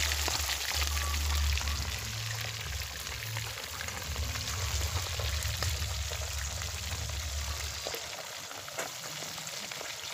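Fish frying in hot oil in a small pot: a steady sizzle thick with fine crackles and pops. A low rumble runs under it and stops about eight seconds in.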